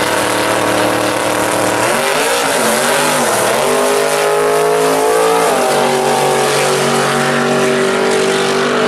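Two drag cars, a 1955 Chevy and a pro street car, launching from the line and accelerating hard down the strip. The engine note rises, drops back and rises again as they shift gears, then holds steady as the cars run away.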